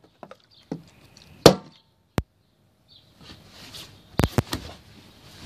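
Plastic juice bottle tossed in a bottle flip, knocking down onto wooden deck boards: a few sharp knocks, the loudest about a second and a half in, then a quick cluster of knocks about four seconds in as it ends up standing on its cap.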